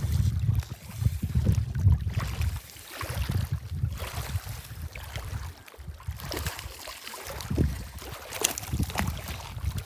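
Wind gusting over the microphone in uneven buffets, with light splashing of water.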